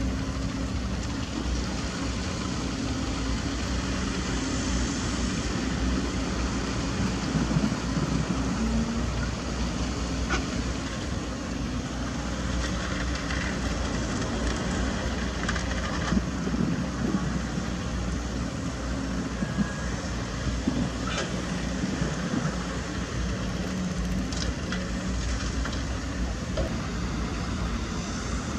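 Caterpillar 320D2 GC hydraulic excavator's diesel engine running steadily under digging load, with a few short, sharp metallic knocks from the working boom and bucket.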